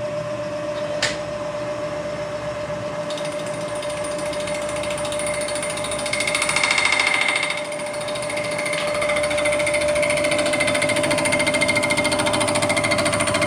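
Vertical milling machine running a large face-milling cutter across the cast-iron deck of a 1927 Chevy engine block, decking it flat: a steady machine whine under a fast, even rattle of the cutter on the iron, swelling louder for a couple of seconds about six seconds in.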